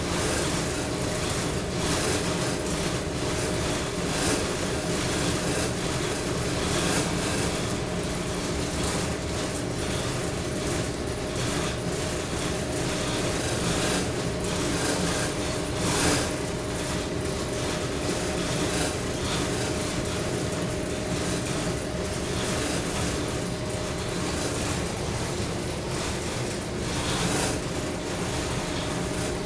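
Steady machinery drone of a container ship, with several constant hum tones under an even rushing noise. A brief louder knock comes about halfway through.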